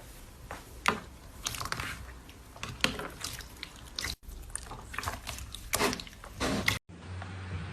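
Crunchy slime being squeezed and pressed, giving irregular crackles and pops. The sound drops out briefly twice.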